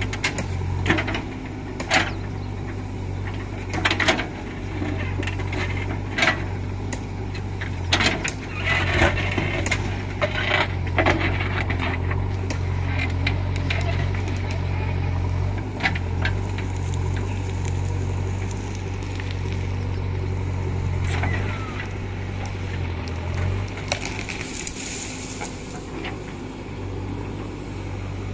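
JCB 3DX backhoe loader's diesel engine running steadily while its backhoe bucket digs into stony soil, with sharp knocks and scrapes of rocks against the steel bucket, most frequent in the first half.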